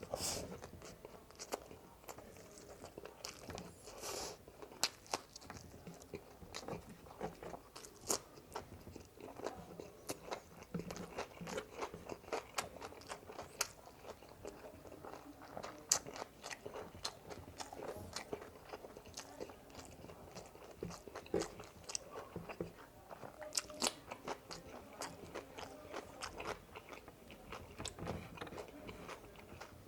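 Close-miked chewing and biting of spicy frog legs and fried rice, with many small irregular crunches and wet clicks several times a second.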